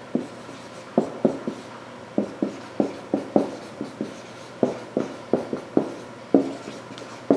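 A string of some twenty light, sharp clicks and taps at an uneven pace of two to three a second, in small clusters with a short gap about halfway through.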